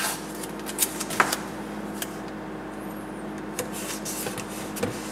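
Scattered light clicks and taps of blue painter's tape being pulled, torn and pressed onto the plastic grille and its aluminum mesh, the grille shifting as it is handled.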